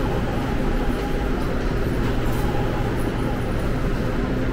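Seoul subway train running, a steady low rumble with a faint hum and no break.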